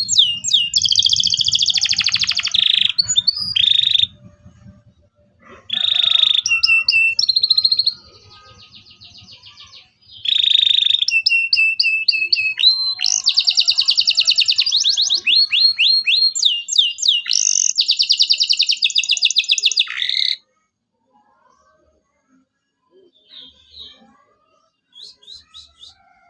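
Local canary singing in loud bursts of rapid repeated chirps and trills, breaking off twice for a few seconds. The song stops about 20 seconds in, leaving only a few faint chirps.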